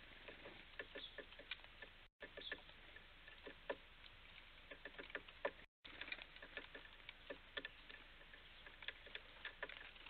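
Faint, irregular tapping and clicking of small birds, great tits and blue tits, pecking seed and hopping about on the feeders and bird table. The sound drops out briefly twice.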